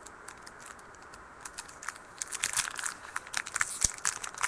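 Football card packs and cards being handled: wrappers crinkling and cards clicking, a run of short sharp crackles that starts about a second in.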